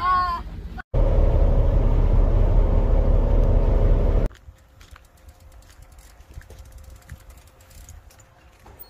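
A loud, steady rumbling noise for about three seconds that cuts off suddenly. Then, more quietly, scattered light ticks that fit a bicycle's freewheel clicking as the bike is pushed along.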